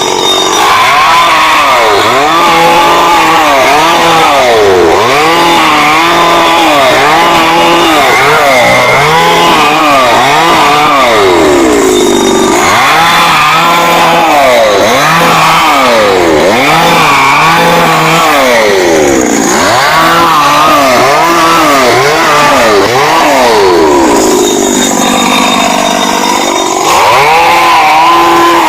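Small petrol engine of a motorized oil-palm harvesting chisel (mesin dodos) running hard, revving up and down about once a second as it works, and easing off to a lower speed twice.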